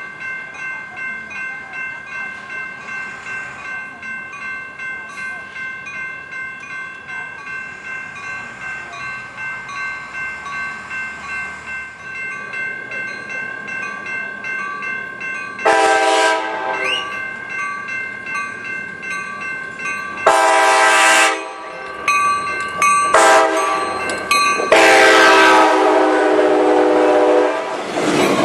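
Sounder commuter train's cab-car horn sounding the grade-crossing signal, long, long, short, long, the last blast held about three seconds, over a steady pulsing ring; the train's wheels and cars pass close by near the end.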